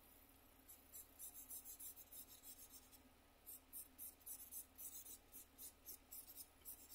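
Charcoal scratching faintly on sketchbook paper in quick hatching strokes, about four a second, in two runs with a short pause about halfway.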